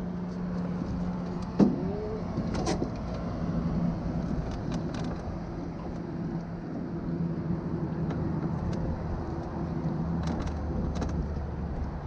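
Boat motor running steadily with a low hum, with a sharp knock about a second and a half in and a few lighter clicks later.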